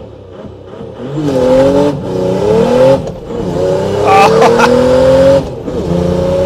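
Mercedes OM606 3.0-litre straight-six turbo diesel at full throttle from a standstill, revving up hard through a manual gearbox. Its note climbs, drops at a gear change about three seconds in, climbs again, and drops at a second change near the end.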